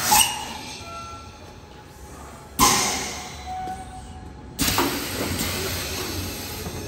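MIC-9A semi-automatic PET bottle blowing machine's pneumatics firing three sudden hissing blasts of compressed air, about two seconds apart, each fading away over a second or so.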